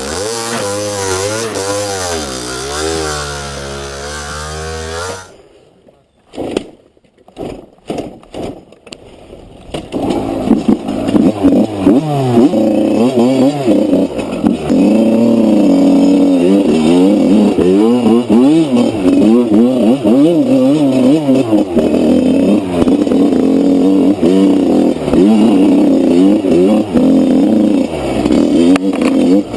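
Off-road dirt bike engine revving up and down as it is ridden. About five seconds in, the engine sound drops away into a few seconds of broken knocks. It comes back louder near the ten-second mark, with quick rises and falls in pitch.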